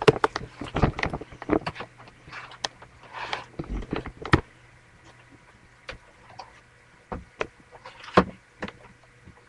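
Irregular clicks, knocks and rustling from a handheld camera being moved about, densest in the first half, with a few sharp knocks near the end.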